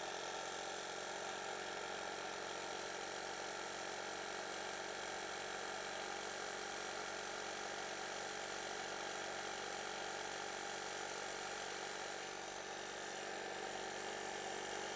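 Small electric bike tire pump running steadily, a constant motor hum with hiss, pumping air into a plastic 2-liter bottle to build up pressure inside it.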